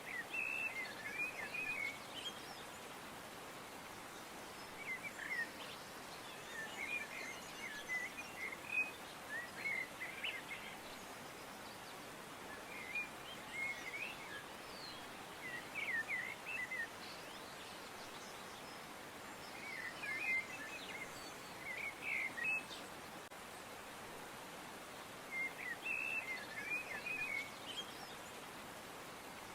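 Small birds chirping in clusters of quick twittering notes every few seconds, over a steady background hiss.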